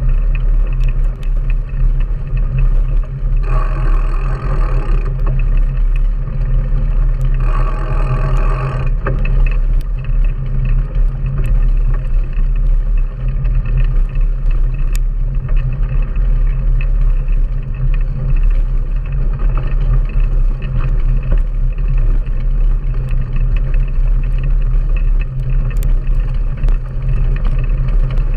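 Steady wind buffeting and rumble on an action camera riding on a mountain bike over a rough dirt and gravel track, with scattered clicks and rattles from the bike. Two short higher-pitched tones cut in, about three and a half and seven and a half seconds in.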